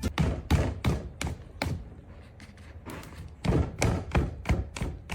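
A series of irregular thumps and taps, about two or three a second, thinning out in the middle and picking up again near the end.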